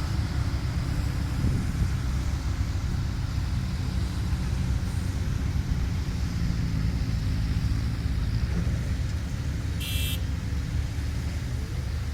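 Heavy diesel earthmoving machinery running steadily with a low engine rumble. A brief high-pitched chirp comes about ten seconds in.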